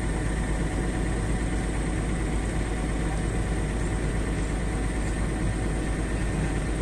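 Excavator's diesel engine idling steadily, a low, even hum.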